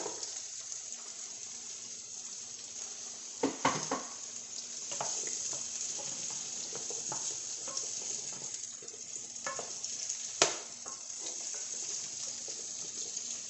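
Sliced carrots, onion and garlic sizzling steadily in a frying pan as a wooden spoon stirs and scrapes them around. A few sharper knocks come about four seconds in and again about ten seconds in.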